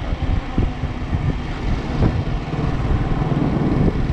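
Motorcycle on the move: steady engine running with low road and wind rumble.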